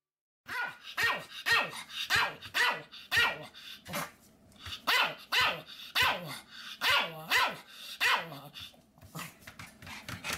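Pomeranian barking repeatedly, about two barks a second, each dropping in pitch, with a short lull about four seconds in.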